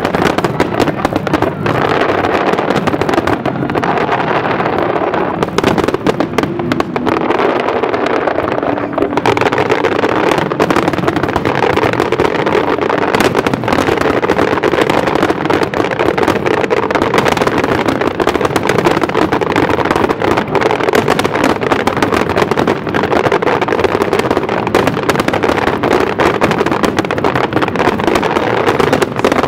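Fireworks display: a dense, unbroken run of crackling bangs.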